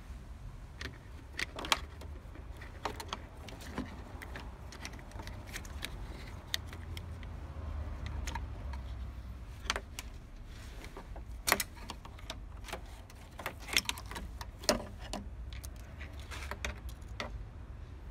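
Irregular clicks and light rattling of plastic and wire as an old, crumbling fuel-injection wiring harness is worked loose by hand, over a steady low rumble.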